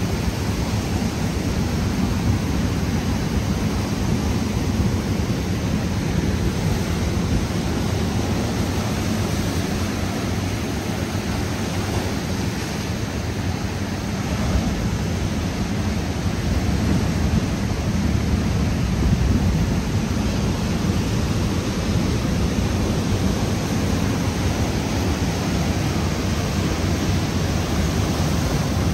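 Steady, even rushing noise, heaviest in the low end, with no distinct events.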